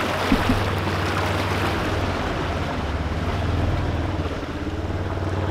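Off-road utility vehicle's engine running steadily at low speed as it drives through a flooded, muddy pond, with muddy water splashing and churning against its side.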